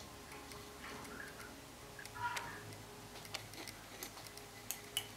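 Scattered small clicks of a metal teaspoon scooping flesh out of a halved kiwi and being eaten from.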